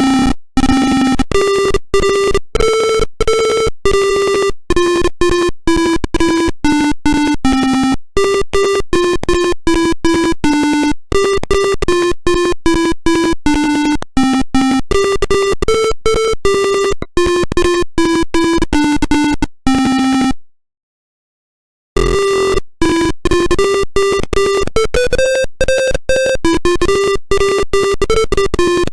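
Arduino-driven buzzer playing a song as a string of short, buzzy electronic beeps that step up and down in pitch. The tune cuts off about 20 seconds in, and after a second and a half of silence another tune starts.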